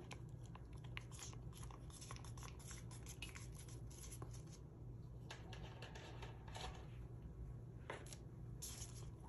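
Faint scattered scratches and light clicks of hands handling plastic cups while epoxy resin is measured out for mixing, over a low steady hum.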